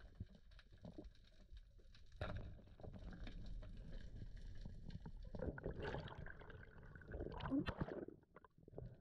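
Underwater water noise heard through a camera housing as a spearfisher swims: uneven rushing and gurgling with scattered small clicks. It grows louder about two seconds in and is loudest shortly before the end.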